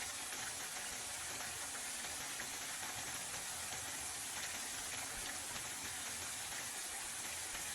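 Thin potato slices frying in hot oil in a pan, a steady sizzle as they cook toward golden brown.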